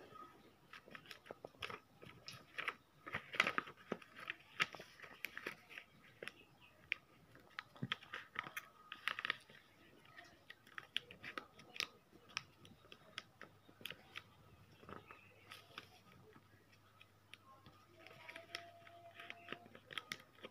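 A sheet of paper being folded and creased by hand: crinkling, rustling and sharp little crackles as fingers press the folds flat, busiest around three seconds and nine seconds in.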